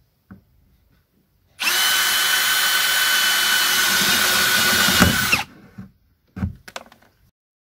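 Cordless drill with a spade bit boring a hole through the wall of a plastic tote: the motor starts about one and a half seconds in, runs at a steady speed for about four seconds, then stops. A few short knocks follow near the end.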